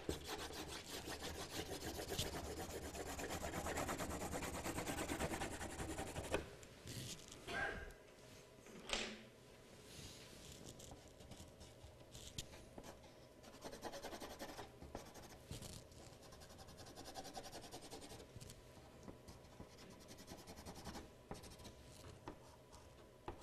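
Colored pencil shading on paper: fast back-and-forth scribbling strokes, dense for the first six seconds or so, then lighter and more scattered, with a couple of short knocks in between.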